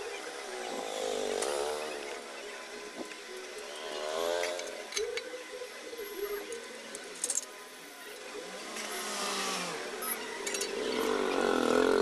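Small electric table fan motor running, its hum rising and falling in pitch several times, with a few sharp clicks about seven seconds in.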